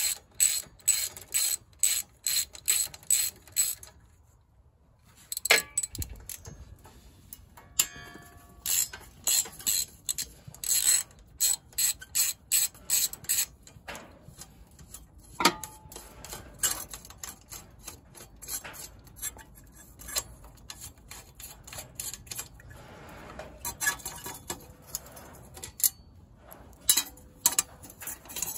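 Hand ratchet wrench clicking as a bolt is turned, in an even run of about three clicks a second, then pausing briefly about four seconds in. After that it goes in irregular runs of clicks with a few louder metal knocks.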